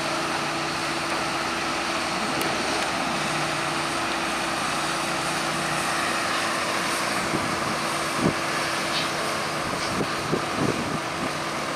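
Diesel engines of a Hitachi Zaxis 210 excavator and a New Holland T7 tractor running together as the excavator swings and loads slurry, a steady mechanical drone with a few short knocks in the second half.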